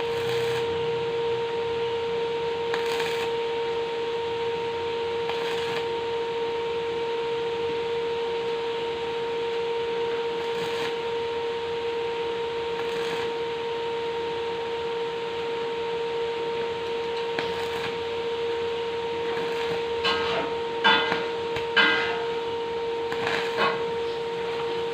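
Electric welding machine giving a steady hum over a constant hiss, with a few sharp metallic clinks between about 20 and 24 seconds in.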